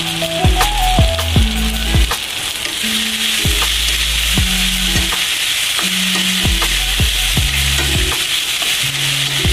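Okra and cubed squash sizzling as they are stir-fried in hot oil in a wok, with a steady frying hiss, over background music with a regular beat.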